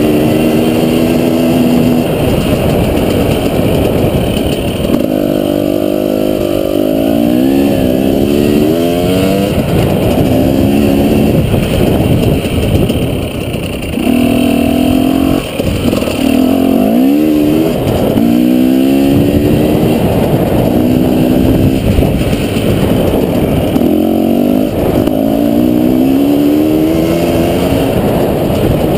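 Dirt bike engine under way, its pitch climbing in several long rising pulls and holding steady in between as the rider works the throttle through the gears. Heavy wind and rumble on the onboard camera run underneath.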